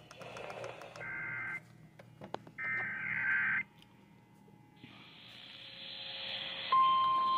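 Emergency Alert System data burst tones coming over a radio: two short bursts of shrill data tones about a second and a half apart, marking an alert going out. Then a hiss grows louder, and a steady alert tone starts near the end.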